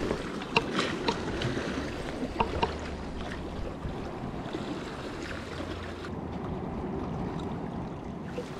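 Seawater sloshing and lapping among concrete tetrapods, with wind rumble on the microphone. A few light ticks sound in the first three seconds.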